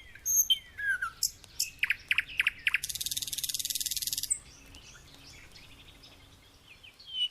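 Songbirds calling: short, high chirps and repeated whistles that slide downward, with a fast, high buzzing trill lasting about a second, about three seconds in.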